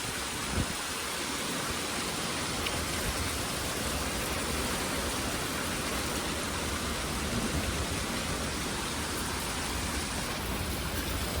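Heavy thunderstorm rain pouring down as a steady, dense hiss.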